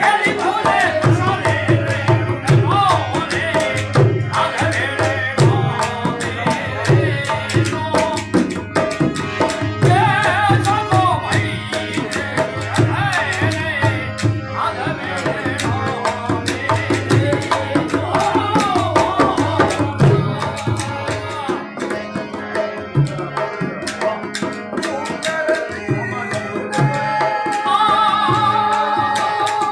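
Rajasthani folk song: men singing over a harmonium, with a two-headed dholak drum keeping a fast, steady beat. The drumming thins out about two-thirds of the way through, leaving the harmonium's held notes more prominent near the end.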